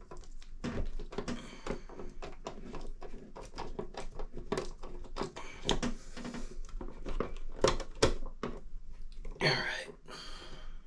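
Irregular small clicks, taps and knocks as a screw is driven by hand into a bathroom exhaust fan's sheet-metal housing, with a short rasping scrape about nine and a half seconds in.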